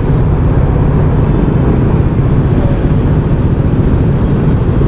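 Steady rush of wind noise over the microphone on a moving motorcycle, with the engine's low, even running sound underneath at cruising speed.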